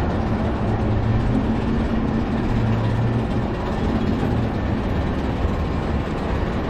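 A steady, low rumbling background noise with a faint hum running through it.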